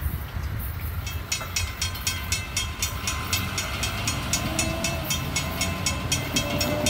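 Railroad crossing bell ringing at about four strokes a second, starting about a second in as the crossing gates begin to rise after the train has passed. Under it is the low rumble of the departing freight train, and near the end car engines pull away across the crossing.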